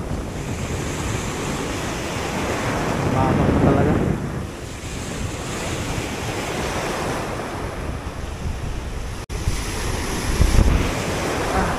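Surf washing over a rocky reef shelf, with wind buffeting the microphone. The wash swells louder a few seconds in and again near the end, and the sound cuts out for an instant about nine seconds in.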